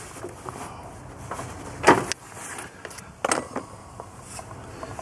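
Engine drive belts being pulled off their pulleys and handled, with two short scraping noises about two seconds in and again a second later over quiet background.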